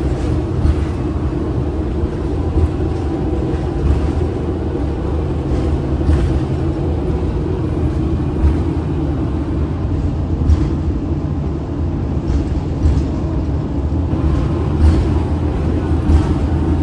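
Orion VII Next Generation transit bus heard from inside while under way: a steady low rumble of drivetrain and road, with a faint steady high tone and scattered small rattles and knocks.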